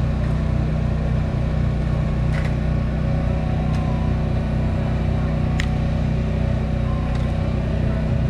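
A motor running steadily: a loud, even low hum, with a few faint ticks over it.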